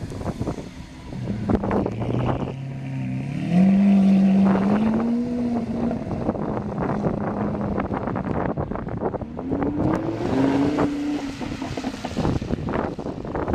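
Lamborghini Aventador V12 accelerating away, its note rising for a few seconds and then holding steady, followed near the end by a Lamborghini Huracán V10 pulling away with a second rising note. Wind buffets the microphone throughout.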